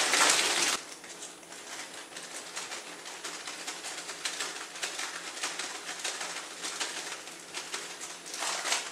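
Crumpled aluminium foil crinkling as it is handled and lifted off a foil pan. The crinkling is loud for the first second, softer and scattered after that, and louder again briefly near the end.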